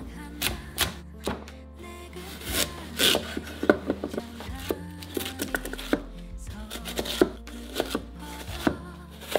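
Kitchen knife cutting a large Korean radish into slabs and cubes on a wooden cutting board: a string of irregular knife strokes, each ending in a knock of the blade on the board.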